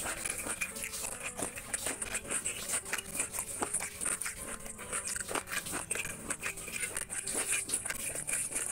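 Close-miked eating sounds: wet chewing and lip-smacking of chicken curry and rice, with fingers squishing and mixing rice into the gravy, a steady run of small clicks and smacks.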